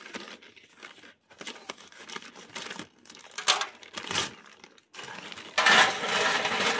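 Brown paper charcoal bag crinkling and tearing as it is opened by hand, then charcoal pieces pouring out of it into a small metal barbecue grill, a dense loud rush of noise in the last second or so.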